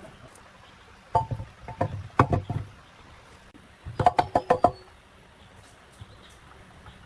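Metal parts being knocked and clinked together in two quick bursts of sharp strikes, each with a short ring.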